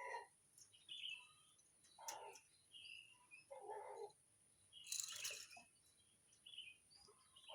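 Faint chirping of birds in the background, scattered short calls, with a few lower short calls in between and a brief noisy rustle about five seconds in.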